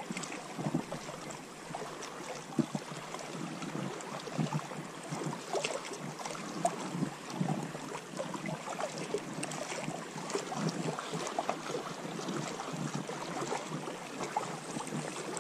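Small waves lapping and sloshing against shoreline rocks, an uneven run of little splashes.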